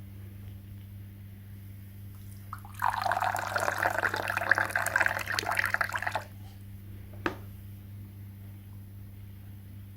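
Liquid poured or splashing for about three and a half seconds, starting a few seconds in, followed by a single sharp click. A faint steady hum runs underneath.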